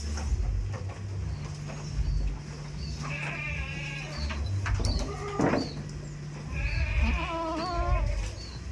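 Goats bleating: two long, wavering bleats, one about three seconds in and another near seven seconds, over a low rumbling background.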